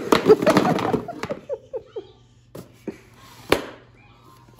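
Cardboard brick blocks clattering onto a wooden floor as a block tower topples, a dense burst of hollow knocks lasting about a second. A toddler's short vocal sounds follow, then a few single knocks as blocks are set down on the floor.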